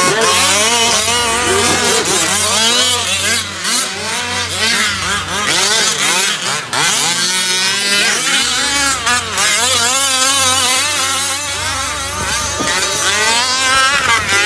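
Several 1/5-scale gas RC off-road trucks with small two-stroke engines racing. Their engines rev up and down over one another in a continuous, overlapping rising-and-falling drone.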